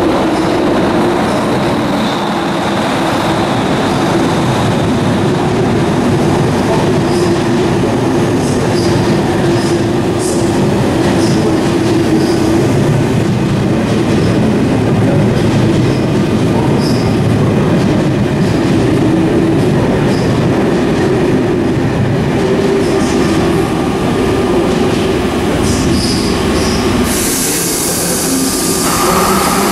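SNCF BB 26000-series electric locomotive and its night-train coaches running along an underground station platform: a steady loud rumble and hum with wheel squeals and clicks over the rails. Near the end a steady hiss joins in.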